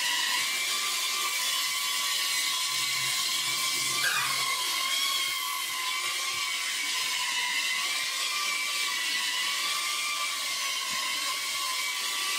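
Small FPV quadcopter's motors and propellers whining at a steady high pitch that wavers slightly as the throttle is worked, with a quick swoop in pitch about four seconds in.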